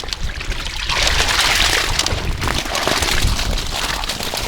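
Water pouring and splashing in a steady rush that swells about a second in, over a low rumble of wind on the microphone.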